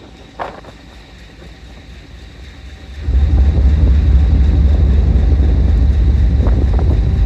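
Wind buffeting the microphone aboard a ferry under way, over a low rumble. About three seconds in it swells into a much louder, heavy low rumble that holds steady.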